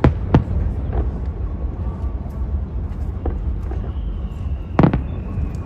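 Aerial fireworks shells bursting: several sharp bangs, two close together at the start, fainter ones after, and the loudest, a doubled bang, about five seconds in. Under them runs a steady low rumble.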